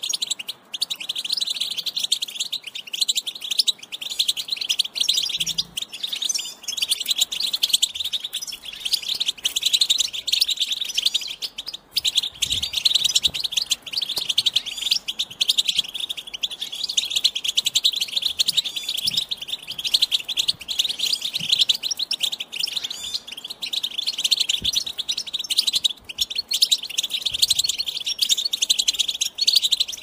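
European goldfinch song: fast, almost unbroken high twittering and trilling, with a few brief pauses.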